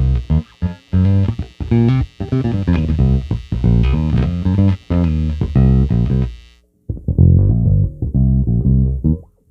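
Squier Classic Vibe '50s Precision Bass playing a line of separate plucked notes. About two-thirds of the way through the tone turns suddenly darker, with the treble gone.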